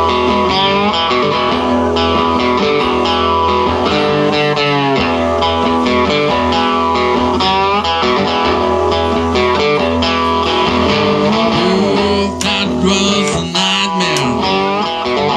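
Live blues band playing: amplified cigar box guitars carry the tune, with notes that slide up and down in pitch, over drums.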